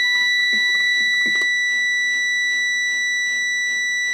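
MPP Solar PCM-3012 charge controller's alarm buzzer sounding one steady, unbroken high beep: its fault alarm for an overload (fault 2) from too much current on the panel input.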